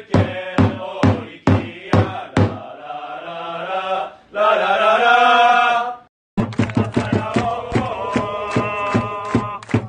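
Football supporters chanting a player chant in unison to a steady drum beat. About two and a half seconds in the drum stops under a long held line. After a brief silence about six seconds in, a new chant starts with the drum.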